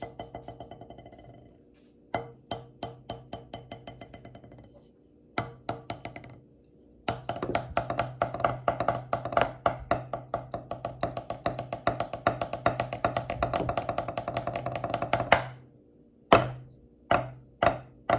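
Drumsticks striking an AAGUT practice drum pad with a dry, sharp tap. First the stick is dropped and left to bounce three times, each run of taps speeding up and fading out. Then a fast, even roll plays for about eight seconds, followed by a few single hard strokes near the end.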